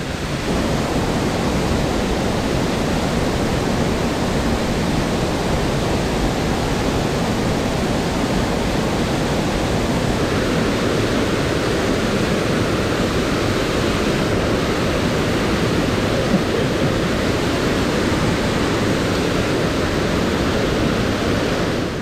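Rushing water of a mountain stream: a loud, steady, even rush of flowing water with no other sound standing out.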